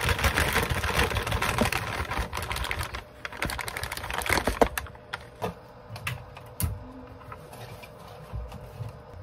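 A bag rustling and crinkling as cotton balls are shaken out of it into a plastic bin: dense crackling for the first three seconds, then thinning to scattered clicks and handling knocks.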